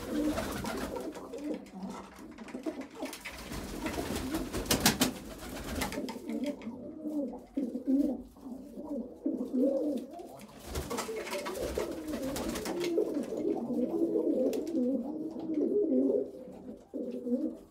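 Several domestic pigeons cooing at once, their low wavering calls overlapping throughout. Brief rustles and knocks come between about three and six seconds in, and once more near eleven seconds.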